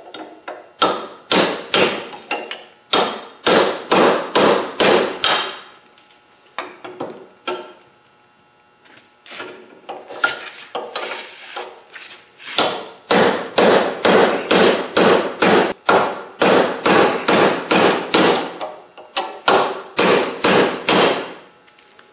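Hammer blows on a chisel against a wheel bearing race on a Honda Civic front hub, about three sharp metal strikes a second, with a lull of a few seconds about six seconds in before the pounding resumes. The race has been cut partway with a torch and the chisel is breaking it the rest of the way off the hub.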